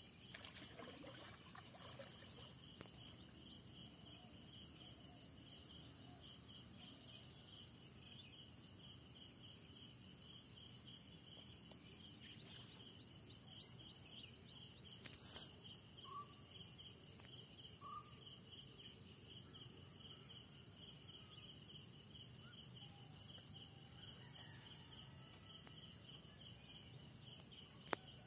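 Faint outdoor ambience: a steady high chirping of insects with short falling bird-like calls repeating every second or so. A single sharp click near the end.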